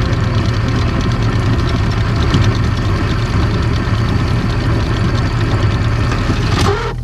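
Anchor windlass on a trawler's bow hauling in chain with a fast, steady clatter, over the steady drone of the boat's diesel engine idling; a clunk near the end.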